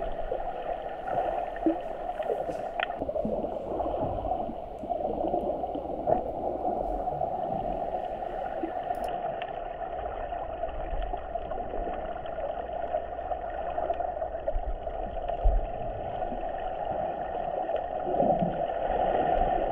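Muffled underwater rushing and gurgling picked up by a GoPro sealed in its waterproof housing beneath the surf, with a low rumble and a few faint clicks.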